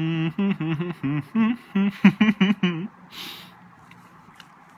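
A man humming with his mouth closed while savoring a piece of chocolate: one long held 'mmm', then a quick string of short hums going up and down in pitch, and a breath about three seconds in.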